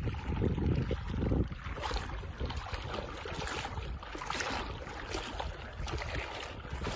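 Wind buffeting the microphone over open water, with heavy rumbling gusts in the first second and a half, then a steadier wash of wind and water noise.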